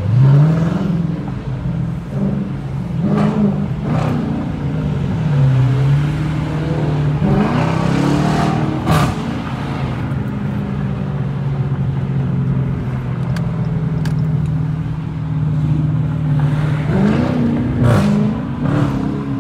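Dodge Challenger R/T's Hemi V8 heard from inside the cabin, pulling through the gears several times with revs rising and falling, with a steady cruising stretch in the middle.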